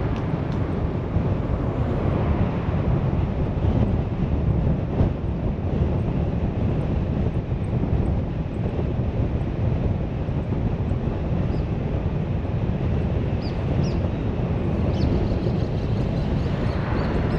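Steady low road rumble of a car being driven: tyre and engine noise.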